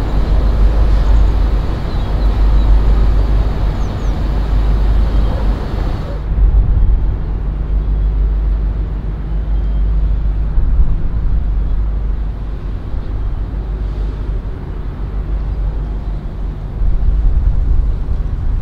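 A steady, bass-heavy rumble of engines and traffic noise.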